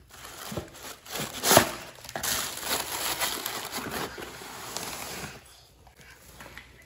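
Tissue paper crinkling and rustling as children's sneakers are packed back into a cardboard shoebox, with a sharp knock about one and a half seconds in as box and lid are handled. The rustling stops a little after five seconds.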